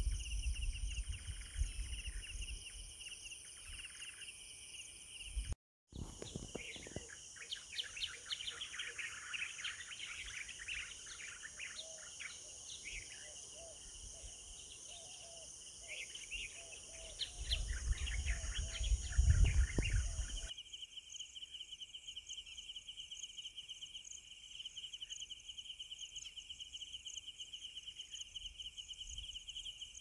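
Crickets trilling steadily with birds chirping and calling over them; a low rumble rises briefly about two-thirds of the way through. After a short break early on and a cut later, only a steady pulsing cricket trill remains.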